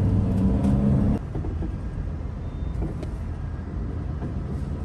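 Engine drone and road noise heard from inside a moving passenger van, a steady low hum that cuts off abruptly about a second in, giving way to a quieter, even rumble of traffic.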